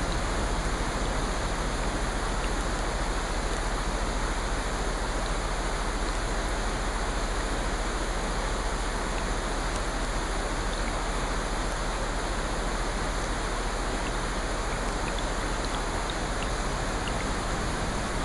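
Steady rainfall, an even hiss that holds level throughout, with a few faint scattered ticks of single drops.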